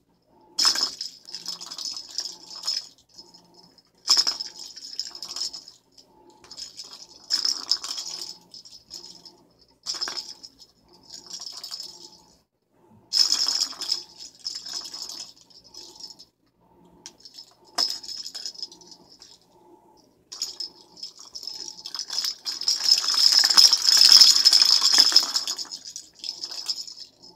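Plastic balls rolling and rattling around a circular cat track toy as a cat bats them, in repeated bursts of a few seconds with sharp knocks. The longest, loudest run comes near the end.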